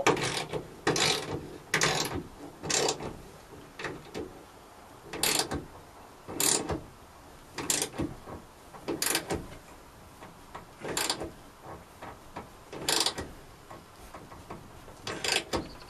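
Ratchet spanner clicking in short bursts of strokes as bolts through a van's back door are tightened, the bursts close together at first and then coming every second or two.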